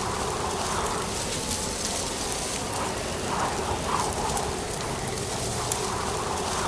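Strong wind blowing through dry autumn leaves: a steady rustling hiss with scattered faint crackles and small swells of gusts.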